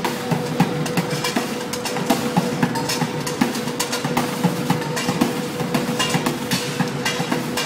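Street drumming on a set of buckets and containers: a fast run of sharp hits, several a second in a busy, shifting rhythm, over a steady hum.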